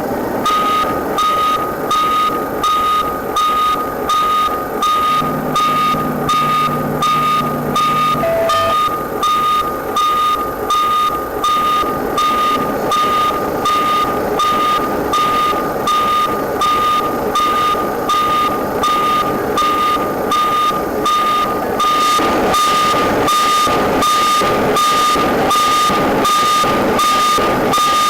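Vehicle reversing alarm beeping in a steady, even rhythm of about one and a half high-pitched beeps a second, being tested. A brief low hum sounds under it about five seconds in.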